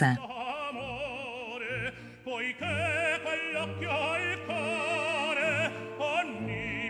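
Background music: an operatic voice singing long held notes with wide vibrato over orchestral accompaniment.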